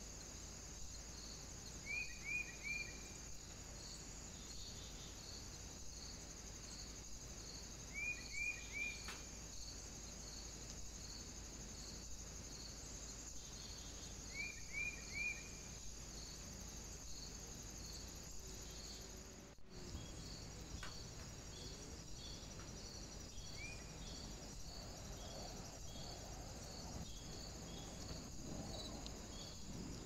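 Woodland ambience: a steady high chirring with faint regular pulses, insect-like. Over it a bird calls quick groups of three short chirps, three times about six seconds apart, then gives a single chirp later on.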